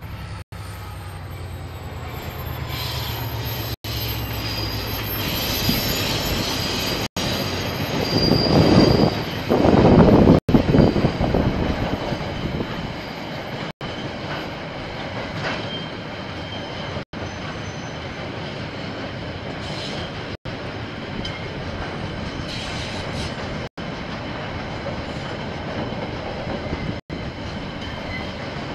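Diesel freight train passing. The locomotives' engines hum low and steady at first, with a louder rush around eight to ten seconds in, then a long run of container wagons rolls by with steady wheel-on-rail noise and faint high wheel squeal. The sound cuts out for an instant about every three seconds.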